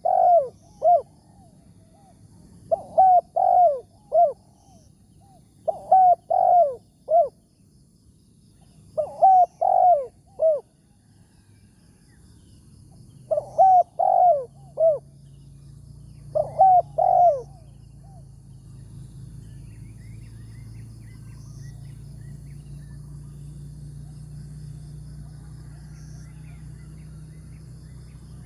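Spotted dove cooing: six phrases of three or four notes, about one every three seconds, which stop about 17 seconds in. A low steady hum grows in from around the middle and carries on after the cooing ends.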